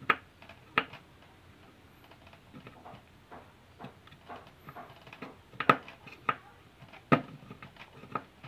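A hand tool clicking and knocking against the metal housing of an electric car horn as its riveted rim is worked open bit by bit. The clicks are sharp and irregular, with the loudest about two-thirds of the way in.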